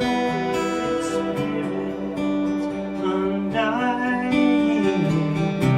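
Ambient band music led by guitar: sustained, slowly shifting chords, with a wavering, gliding melodic line about halfway through.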